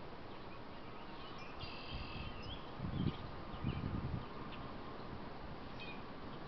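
Outdoor ambience through a trail camera's microphone: a steady hiss with faint high bird chirps and a short buzzy trill, and two dull low thumps about three and four seconds in.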